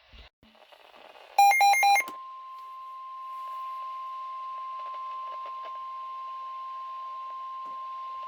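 NOAA Weather Radio emergency alert. About a second and a half in come three short, loud bursts of SAME digital header data tones. Then the steady 1050 Hz warning alarm tone sounds on, heard over radio hiss.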